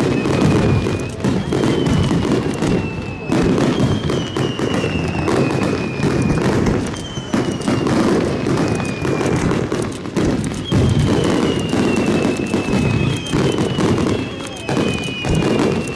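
Aerial fireworks bursting in a continuous barrage of booms and crackles, with high whistles that fall slightly in pitch several times.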